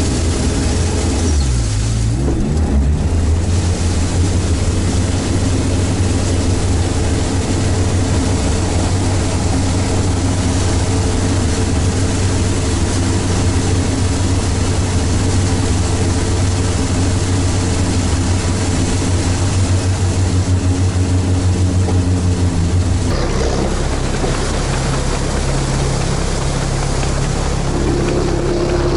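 Amphibious Sherp ATV's diesel engine running steadily under load as the vehicle swims across a river. Its note dips briefly about two seconds in and changes abruptly about 23 seconds in.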